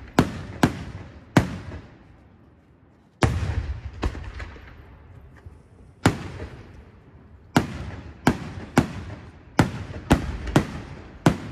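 Aerial fireworks shells bursting overhead in a series of sharp bangs, each trailing off in a rolling echo. There is a short lull about two seconds in, then the bangs come faster, several a second, in the second half.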